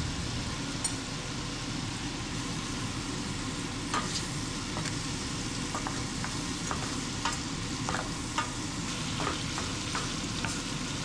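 Shrimp sizzling in butter in a stainless steel skillet as they are stirred and tossed. Scattered light clicks of the utensil against the pan come about once a second through the second half.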